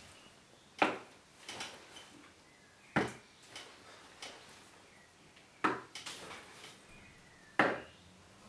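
A domino clicked against a hard surface: four sharp clicks about two seconds apart, each followed by one or two lighter clicks.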